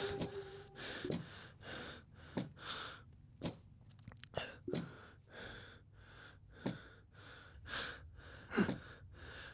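A man breathing heavily, about a dozen sharp, ragged gasps and breaths coming irregularly, with short pauses between them.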